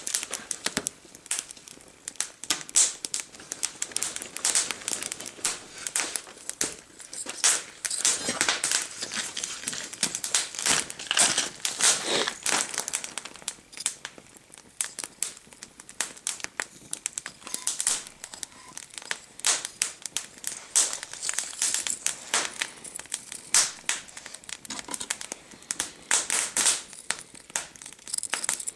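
Paper and kindling crackling and crinkling as a fire is lit in a blacksmith's forge: a dense, irregular run of small sharp crackles.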